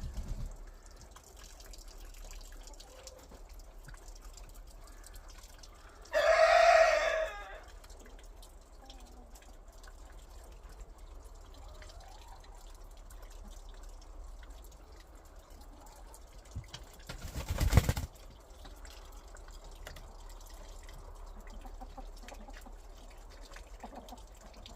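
A chicken gives one loud call of about a second, about six seconds in, over a low steady barnyard background. A loud thump comes about three-quarters of the way through.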